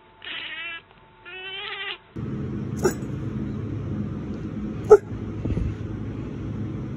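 A house cat gives two short meows that rise in pitch. Then a steady low rumble sets in, and a small dog gives two short barks about two seconds apart.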